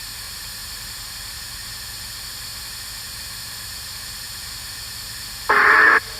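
Spirit box app on a phone giving a steady hiss of static through the phone's speaker. Near the end comes a short, loud tonal blip lasting about half a second.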